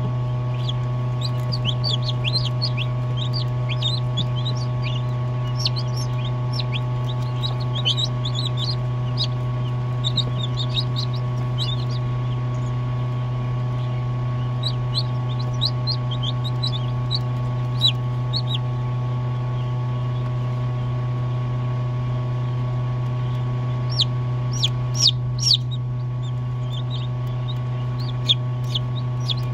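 Newly hatched chicks peeping inside an incubator: short, high chirps in busy runs, a few seconds of pause past the middle, then louder peeps near the end. A steady low hum runs underneath.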